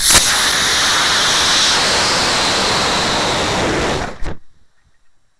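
High-power rocket motor burning, heard from a camera riding on the rocket: a loud, steady rush of noise that starts abruptly and cuts off suddenly about four seconds in at motor burnout, leaving only faint noise.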